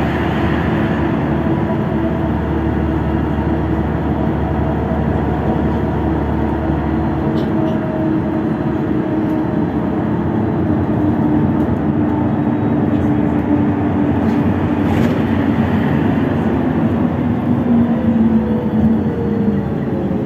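Interior of a LiAZ 6213.65 articulated city bus driving at highway speed: a steady drone of engine and drivetrain over tyre and road noise. Several humming tones hold steady, then sink in pitch near the end.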